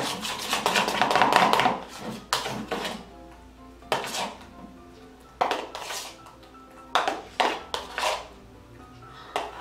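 A plastic spatula stirring and scraping runny slime in a bowl while it is worked to activate it. The stirring is rapid and continuous for about the first two seconds, then comes as separate scrapes roughly once a second, with faint background music.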